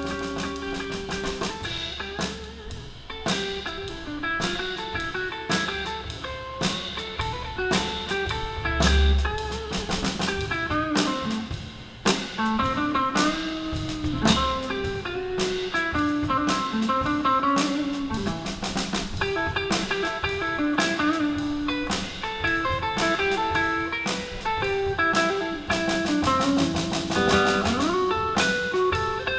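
Live blues band playing an instrumental break: a guitar plays bending lead lines over steady drums and bass.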